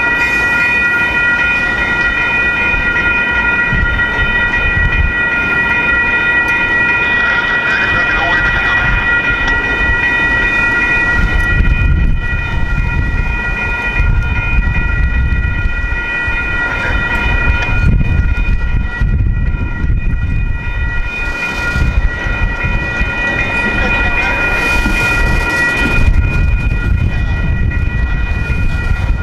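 Railroad crossing bells ringing steadily while freight tank cars roll past on two tracks, the wheels rumbling and clattering over the crossing. The rumble grows heavier from about a third of the way in.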